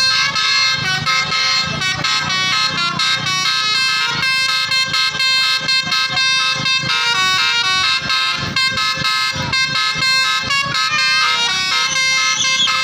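Basuri telolet horn on a tour bus playing a tune: a multi-note air horn sounding one note after another, the pitch changing in steps several times a second without a break.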